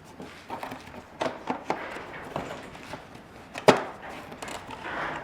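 Plastic knocking and clicking as an aftermarket fog light cover is pushed and worked into a car's front bumper, with one sharp knock a little before four seconds in. The cover is not snapping into place.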